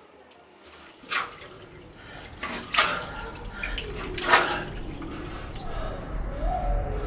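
Water splashing at a bathroom sink, with three sharp splashes about one, three and four seconds in, as of hands throwing water onto a face.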